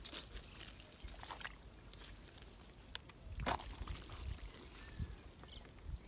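Small water sounds, light trickling and splashing, with scattered light knocks and handling noises; one louder knock about three and a half seconds in.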